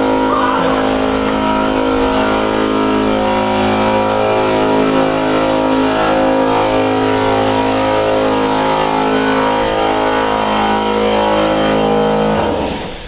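Air compressor motor running at a steady pitch, then cutting off near the end with a short hiss of released air, the usual shut-off once its tank reaches pressure.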